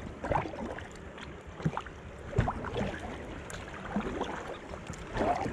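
River water splashing around an inflatable packraft being paddled downstream, with irregular paddle splashes.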